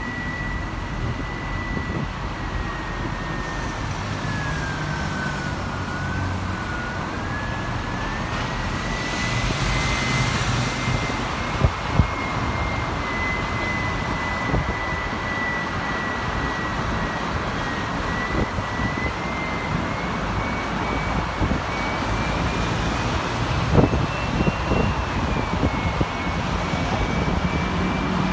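City tour bus on the move: steady engine and road noise with a thin whine that slowly sinks and rises in pitch, and a few short knocks.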